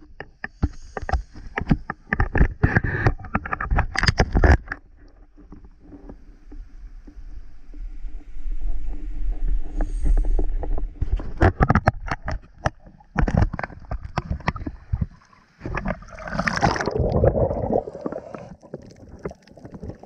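Seawater sloshing and splashing around an action camera held at the surface, with crackles and knocks as water and hands hit the housing. Near the end it turns to a gurgling, bubbling rush as the camera goes under, then goes much quieter.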